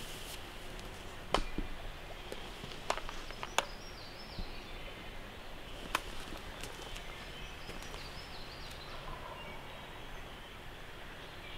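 Faint turkey calling over a quiet woodland background, broken by a few sharp snaps or clicks and some high, stepped bird notes.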